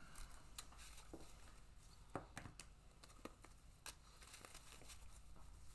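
Faint shuffling of a deck of sleeved Magic: The Gathering cards by hand, heard as a scattering of soft clicks.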